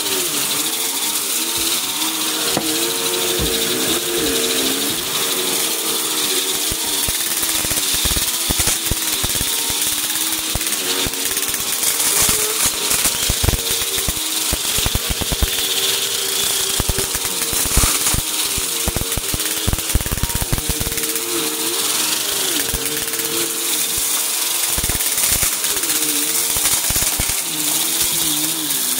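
Upright bagless vacuum cleaner running on carpet, its motor pitch wavering up and down as the head is pushed back and forth, with a constant crackle and rattle of crunchy debris being sucked up into the bin.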